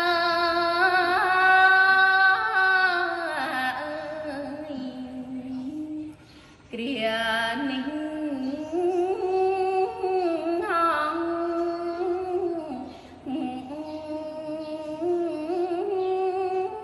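A solo young woman's voice chanting Khmer smot, the Buddhist poetic chant, in long held notes that waver and glide. There is a short break about six seconds in, and a brief one near the end.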